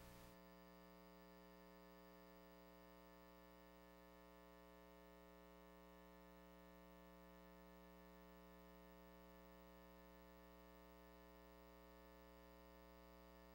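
Near silence: a faint, steady, unchanging hum.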